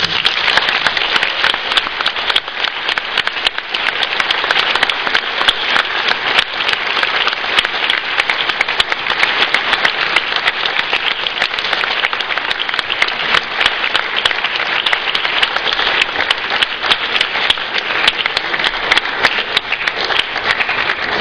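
Audience applause breaking out all at once and holding steady, many hands clapping.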